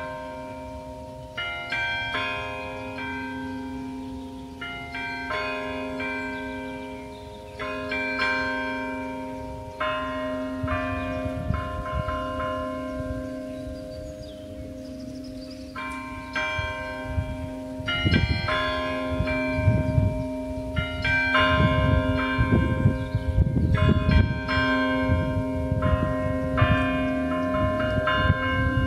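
Carillon bells playing a slow melody: groups of struck bells ring out in chords every second or two, each note decaying slowly so they overlap. From about eighteen seconds in, a low uneven rumble comes and goes underneath.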